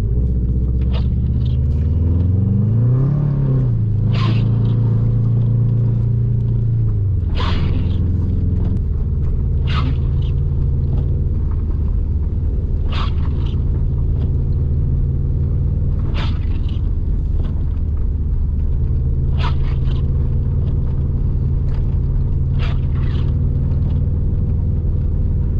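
Subaru WRX STI's turbocharged flat-four engine heard from inside the cabin while driving, revving up about two seconds in and easing off, then holding a steady drone. Short sharp clicks come about every three seconds over the engine.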